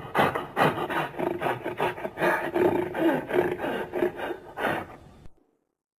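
Growling creature sound effect: a rasping, pulsing growl with a low pitched note, cutting off about five seconds in.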